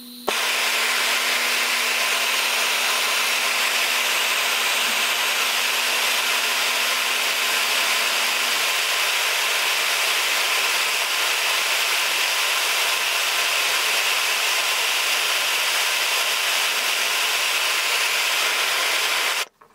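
Hand-held gas torch flame burning with a loud, steady hiss, starting suddenly as it is lit and cutting off suddenly near the end. The flame is heating a ball bearing's hardened steel race to a red-orange glow to anneal it.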